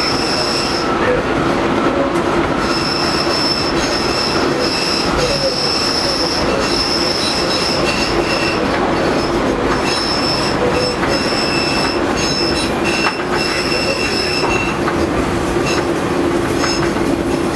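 Light rail train running on curved track, its wheels squealing in a high thin tone that comes and goes over the steady running rumble of the car. The squeal thins out near the end as the track straightens.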